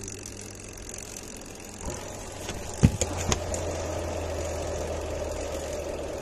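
Spin-dryer tub of a semi-automatic twin-tub washing machine being started: two sharp clicks about three seconds in, then the spin motor running steadily. The spin side is working normally.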